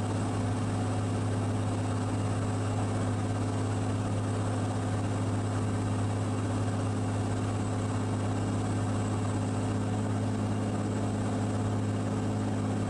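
Cirrus SR22's six-cylinder piston engine and propeller running steadily in flight: an even, unchanging drone with a strong low hum.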